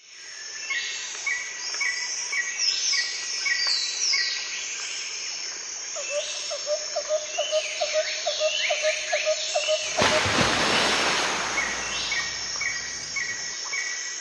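Several wild birds calling: repeated sweeping high calls and a steady string of short repeated notes, over a constant high-pitched insect drone. From about six seconds in, a lower pulsed call repeats about four times a second for several seconds, and around ten seconds in a rush of noise swells for about two seconds and fades.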